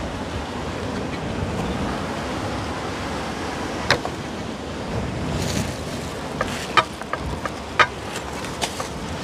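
Sea surf breaking on a rocky shore with wind on the microphone, a steady rushing, with several sharp clicks or taps from about four seconds in.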